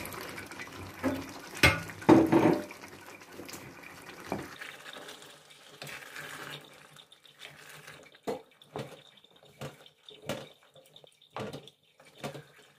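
Boiled chickpeas poured from a bowl into a metal pot of oily curry base, sliding and tumbling in with a wet rushing sound and a few sharp knocks. Then a wooden spoon stirs them through the pot, with separate knocks and scrapes against the metal about once a second.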